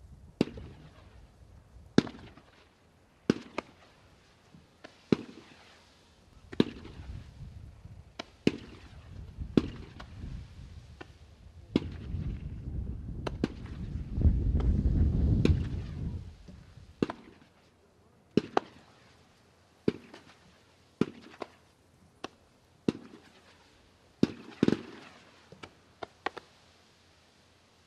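Consumer firework firing a string of sharp bangs, roughly one every one to one and a half seconds, some in quick pairs. A low rumble swells in the middle and dies away.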